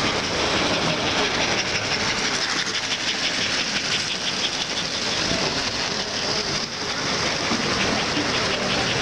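American Flyer S-gauge model steam locomotive and passenger cars rolling past on two-rail track, the wheels running with a fast clickety-clack over the rail joints, busiest in the middle as the train goes by.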